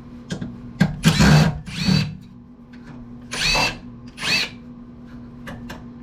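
Power drill driving out screws from a metal amplifier chassis: four short whirs, the motor pitch rising and falling with each run, with small clicks and knocks of the screws and casing between them.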